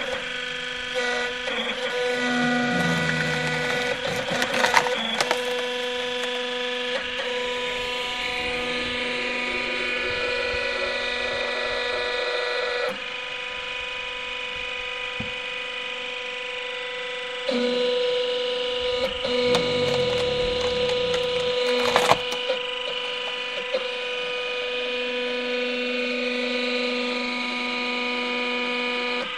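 Hydraulic log splitter running with a steady hum, its pitch sagging twice as the ram drives the wedge into a log under load. The wood cracks sharply a few times as it splits, loudest about three quarters of the way through.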